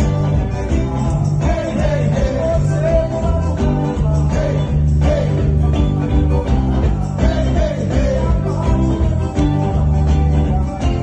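Live amplified band music with a heavy bass line and a steady beat, and a singer's voice carrying the melody over it.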